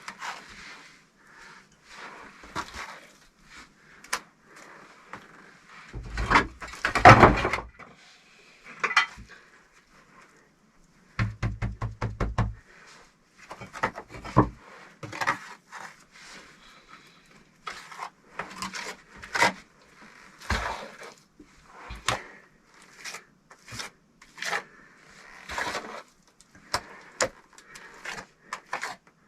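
Handwork on brick and tools during stove building: irregular knocks, taps and scrapes, with a longer scraping rush about six seconds in and a quick run of taps around eleven seconds.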